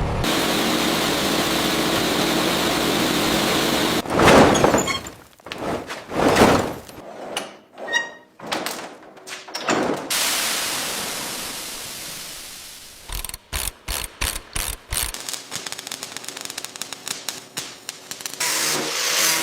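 Car-restoration shop work in quick succession: a steady hiss, then several loud knocks and thuds, a hiss that fades away, and a run of rapid irregular clicks like a ratchet wrench.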